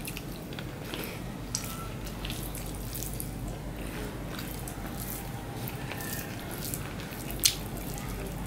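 Wet mouth clicks and smacks of someone chewing rice and curry, with fingers squishing and mixing rice on a banana leaf. One sharper click stands out about seven and a half seconds in.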